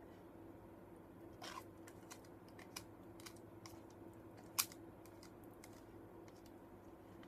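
Small plastic fork scraping and tapping inside an instant-noodle cup as the last noodles are scooped out: scattered light clicks, one sharper click about four and a half seconds in, over a faint steady hum.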